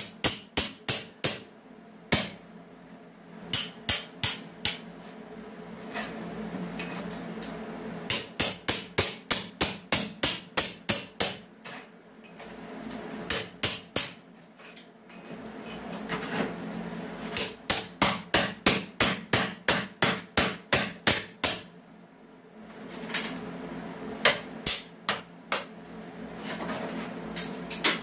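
Hammer blows knocking out a hole for a kitchen exhaust fan: runs of quick, sharp strikes at about three a second, in bursts of a few seconds with short pauses between.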